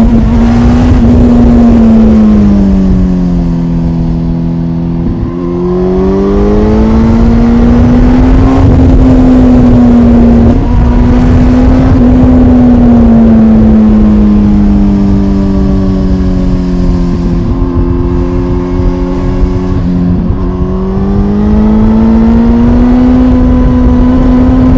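2005 Kawasaki ZX-10R's inline-four engine and exhaust heard from on board while riding. The revs rise and fall with the throttle, sagging about three to five seconds in and again around eighteen to twenty seconds, with brief steps in pitch where the gears change.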